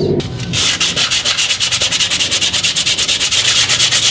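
Sandpaper rubbed by hand, without a block, over the steel of a car's engine bay: fast, even back-and-forth scratching strokes, about ten a second, starting about half a second in. The sanding is scuffing and smoothing the welded and ground areas before paint.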